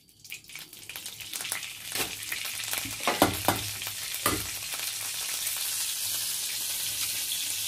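Hot mustard oil sizzling in a pan as turmeric powder goes in, with a few knocks of a spoon stirring. The sizzle builds into a steady hiss about halfway through.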